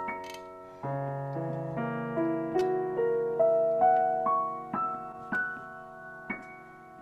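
Digital piano playing a slow piece. A chord with a deep held bass note sounds about a second in, then single melody notes are struck roughly twice a second, climbing higher. The last note rings and fades near the end.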